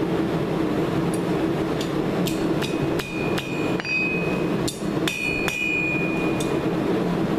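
Hand hammer striking the steel hook over a blacksmith's anvil horn, about a dozen blows in an uneven rhythm, several leaving a high ringing tone. A steady low roar runs underneath.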